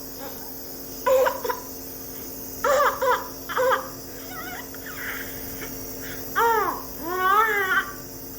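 A baby fussing: short babbling and crying calls, about half a dozen, the last two longer with a falling then wavering pitch, over a steady faint hum.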